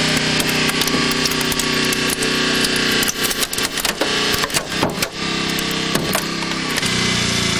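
Hydraulic rescue cutter (Jaws of Life) shearing through a car's steel roof pillar: the metal creaks and gives way in a run of sharp cracks and snaps around the middle, over a steady motor drone.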